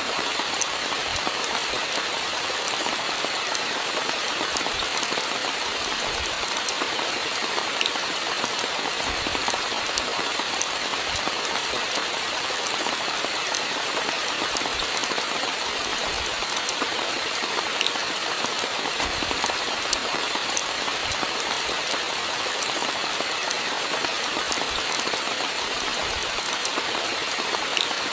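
Steady rainfall: an even hiss of rain with many scattered sharp ticks of individual drops striking.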